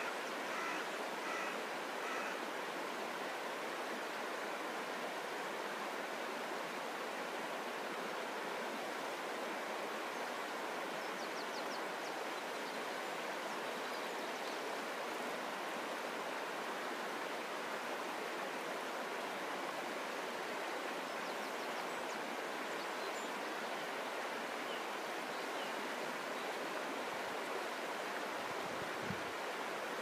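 A shallow river flowing steadily past stepping stones, an even rushing of water that does not change. A bird calls several times in the first two seconds, and faint high chirps come now and then.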